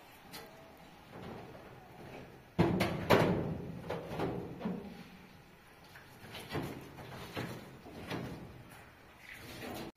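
Two sharp knocks or bangs about two and a half and three seconds in, followed by quieter irregular knocking and handling sounds.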